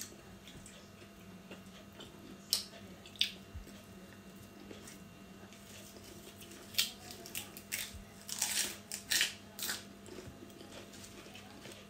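Close-up eating sounds: a couple of crisp bites early, then a run of crunching from about seven seconds in as raw vegetables are bitten and chewed.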